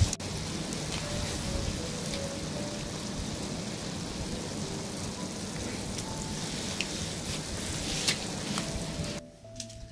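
Wood fire burning in a metal stove's firebox: a steady hiss with scattered crackling pops. It drops away abruptly near the end.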